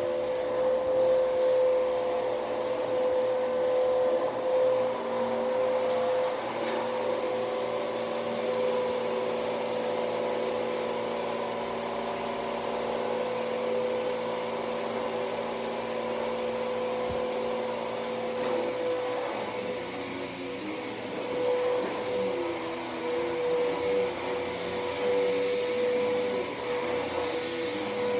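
Hoover vacuum cleaner running steadily: a constant motor whine over a rush of air, its tone wavering slightly in the second half.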